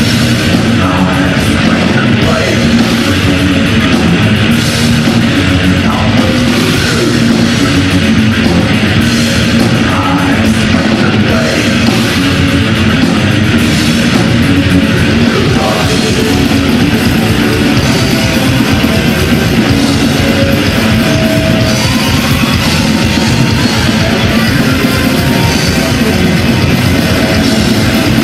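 A heavy metal band playing live: electric guitar and drum kit, loud and unbroken.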